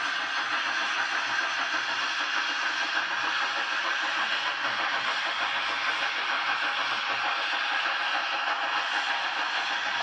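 Narrow-gauge steam train passing: a steady, even noise of the coaches rolling along the track, with no separate chuffs or clanks.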